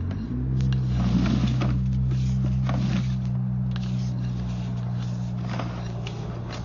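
A machine running with a steady low hum, with scattered knocks and scrapes over it.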